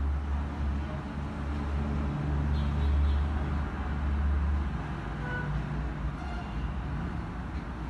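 Low, steady engine rumble of nearby vehicle traffic, easing off about four and a half seconds in.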